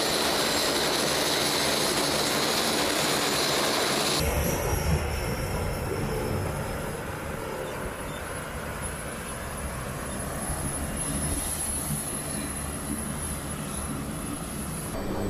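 Lockheed C-130J Super Hercules turboprop engines running on the ground, a steady high whine over a rushing noise. About four seconds in, the sound drops and turns to a lower, quieter rumble with a faint whine.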